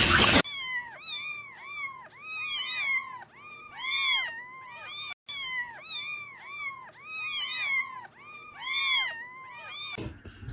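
Several kittens mewing over and over in short, high, rising-and-falling calls that overlap one another, after a loud burst of noise cuts off about half a second in. There is a brief break about halfway through.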